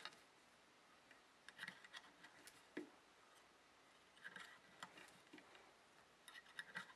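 Near silence with faint, scattered clicks and soft rustles in a few small clusters, as yarn is wrapped around the plastic pegs of a knitting loom and a metal loom hook lifts loops over them.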